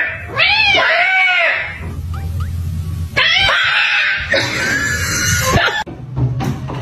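Cat meowing: two short arching meows in quick succession, then a longer drawn-out meow about three seconds in.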